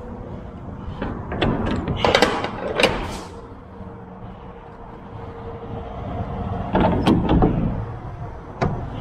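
A semi-trailer's rear swing door being swung shut by hand: clusters of metal clanks and rattles in the first few seconds and again near the end, finishing with one sharp click. A low engine rumble runs underneath.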